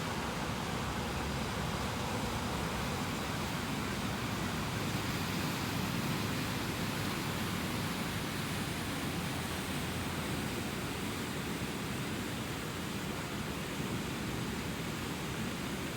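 Rushing river water making a steady, even wash of noise with no breaks.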